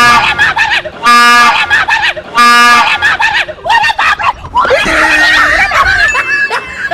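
Two short, loud blasts of a train-style horn, each about half a second on one steady pitch, with people screaming and shrieking between and after the blasts.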